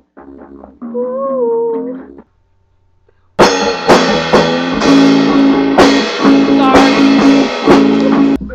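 A song with guitar and drums: a quieter passage with a held, wavering note, a brief break, then a loud full-band section from about three seconds in that cuts off abruptly near the end.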